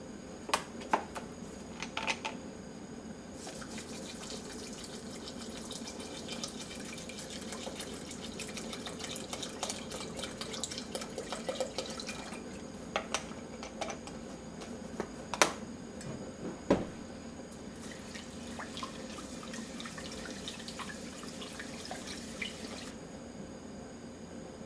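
Water poured from a plastic bottle into a metal hagama rice pot, splashing onto the rice in a long steady rush, then a lighter trickle and splash. A few sharp knocks of the pot and bottle are heard, the loudest about two-thirds of the way through.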